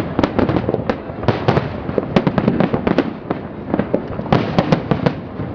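Fireworks display going off: a rapid, dense run of bangs and crackles, many per second.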